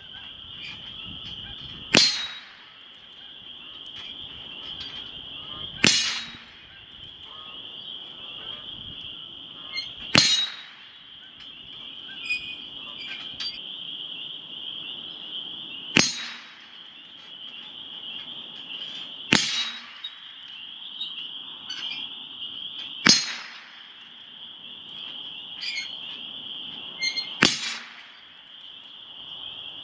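.22 LR rifle firing single shots at a steel swinger target, seven sharp cracks spaced about three to six seconds apart. A steady high-pitched buzz runs underneath.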